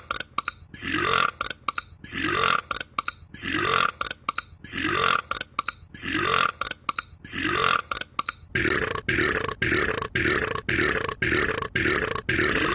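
A man burping over and over at an even pace: about seven long belches a second and a bit apart, then, about eight and a half seconds in, a faster run of short belches, about three a second.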